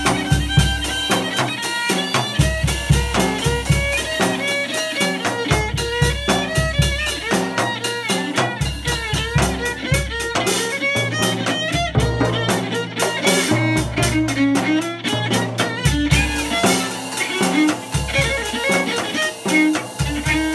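Live instrumental band playing: an electric violin bowing a melody over a drum kit beating a busy rhythm, with held low notes underneath through the middle.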